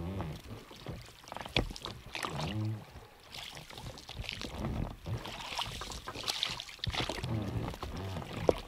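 Oars rowing an inflatable boat: a splash of water on each stroke, about every two to three seconds, with a low creak in between.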